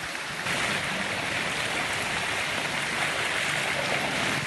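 Floodwater rushing in a steady, even roar, getting suddenly louder about half a second in.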